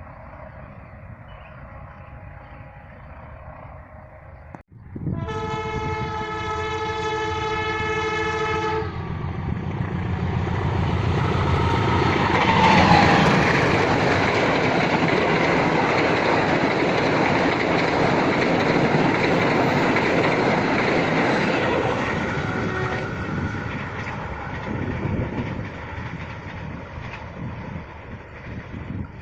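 A passenger train's horn sounding one long blast, then the train passing close by, its wheels and running gear loud for several seconds before fading away.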